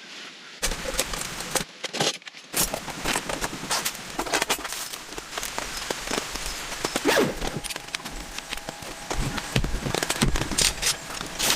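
Rain pattering, a dense run of many small drop ticks with a few louder close hits.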